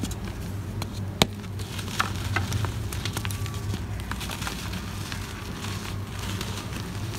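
Hands crushing chunks of dry floor material into crumbs and powder: a crunchy crackling of many small cracks, with a sharp snap about a second in and another a little later.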